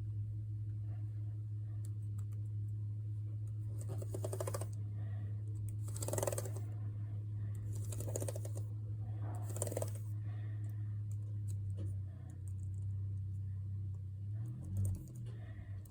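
Keys of a newly fitted Lenovo ThinkPad P71 laptop keyboard being pressed in quick runs to test that every key works: four short bursts of rapid clicking about two seconds apart, over a steady low hum.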